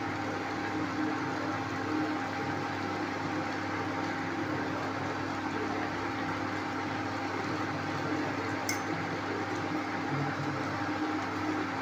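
Pasta sizzling in a hot pan on the stove: a steady, even hiss over a low steady hum. The pasta is starting to catch and burn on the bottom of the pan. A faint click comes near the end.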